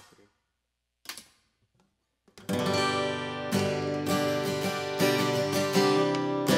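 Acoustic guitar strung with Stringjoy natural phosphor bronze strings. A pause with one brief string sound about a second in, then chords strummed with a pick from about two and a half seconds in.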